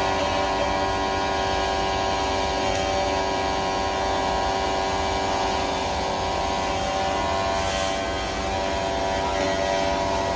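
Aluminium TIG welding with an AC arc, giving a steady, even buzz with many overtones.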